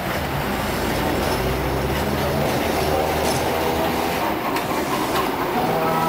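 Hong Kong double-decker electric tram running along street track, its steel wheels rumbling on the rails, with a few sharp clacks about three and five seconds in and a faint wheel squeal near the end.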